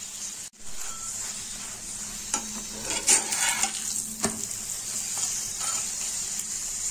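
Ghee sizzling steadily under a stuffed cauliflower paratha frying in a nonstick pan, with a flat metal spatula scraping and tapping the pan several times as the paratha is lifted, flipped and pressed down. The sizzle breaks off for a moment about half a second in.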